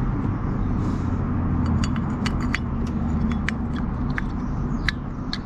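Scattered light metallic clicks and taps from handling brake pads and caliper parts, over a steady low vehicle rumble.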